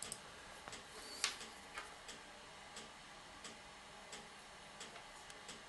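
Faint, regular ticking, about three ticks every two seconds, with one louder click a little over a second in.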